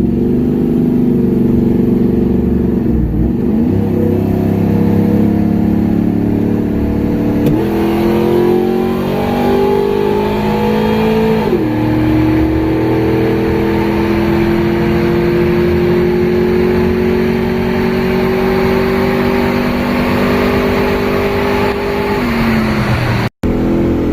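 Cammed GM V8 pickup engine and exhaust pulling under acceleration. The pitch steps up, falls sharply about a third of the way in at a gear change, then climbs slowly and evenly for about ten seconds before easing off near the end.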